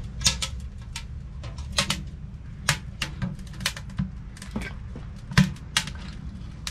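Freshly lit kindling fire crackling and popping irregularly inside a small stainless-steel Winnerwell camp wood stove, over a low steady rumble as it catches. A louder metal knock comes about five seconds in as the stove door is handled.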